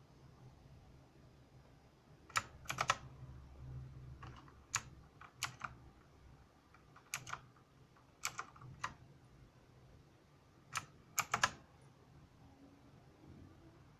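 Mechanical keyboard with clicky blue switches, keys pressed in short, scattered groups of a few sharp clicks, starting about two seconds in.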